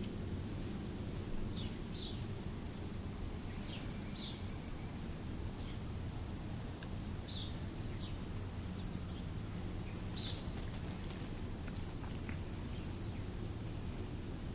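A bird giving short, high chirps every two or three seconds over a steady low background rumble.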